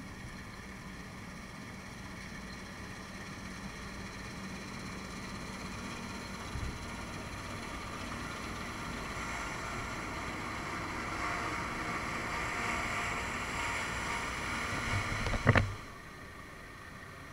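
John Deere 1177 SII combine harvester running while cutting wheat: a steady mechanical drone that grows slowly louder. A short loud knock comes near the end, after which the noise drops to a quieter steady level.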